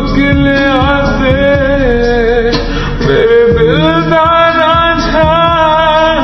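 A Punjabi song: a voice singing long, gliding notes over a steady drum beat.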